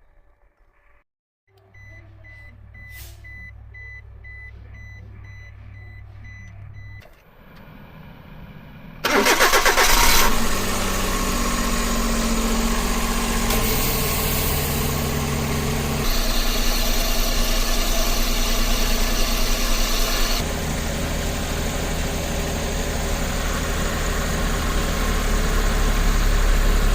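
A Suzuki Every DA64V van's 660 cc three-cylinder engine: first a run of short dashboard warning beeps over a low hum, then the engine cranks and starts about nine seconds in. It then runs at idle, its note shifting a few times. Somewhere in this running is an abnormal noise that is put down to the air-conditioning compressor.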